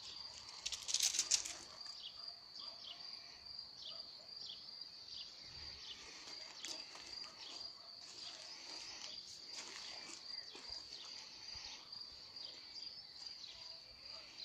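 Crickets chirring in a steady, high, slightly pulsing drone, with short falling chirps repeating over it. A brief noisy rustle about a second in is the loudest moment.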